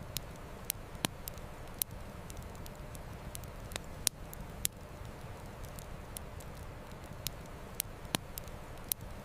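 Wood campfire crackling, with irregular sharp pops a few times a second, a few louder snaps among them, over a steady rush of flowing river water.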